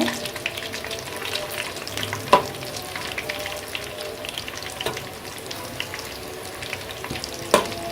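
Whole small chicken frying in hot oil in a pan, a steady sizzle peppered with small crackles and pops as it finishes turning golden brown. Two sharper clicks stand out, about two and a half seconds in and near the end.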